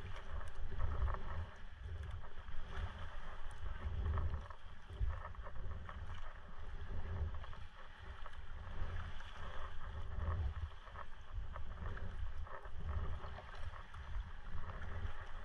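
A touring sea kayak being paddled on calm sea: the double-bladed paddle dipping and pulling in a steady rhythm, about one stroke every second and a half, with water splashing and dripping off the blades.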